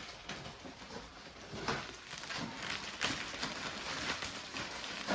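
Plastic packaging rustling and crinkling in irregular crackles as boxed parts are handled and unwrapped.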